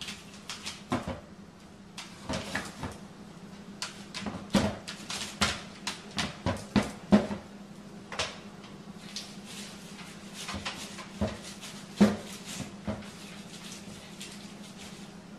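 A small dog rummaging at a plastic kitchen trash bin, pawing and bumping it, making irregular knocks, clatters and rustles. The busiest stretch is in the first half, and a sharp knock comes about twelve seconds in, over a steady low hum.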